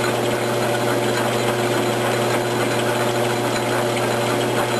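Logan 922 metal lathe running steadily while a parting tool is fed into the spinning workpiece to cut a thread relief groove: an even mechanical hum with a few held tones.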